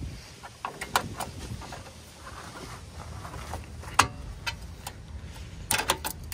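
Small metal clicks and clinks from needle-nose pliers and a parking brake shoe spring being worked into place, with a sharp click about four seconds in and a quick run of clicks near the end.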